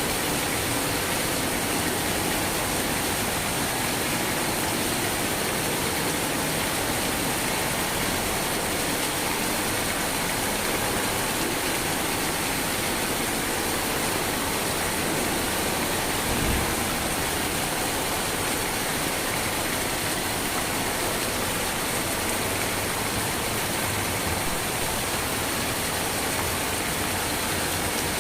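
Steady rain falling, an even unbroken hiss, with one brief low thump a little past the middle.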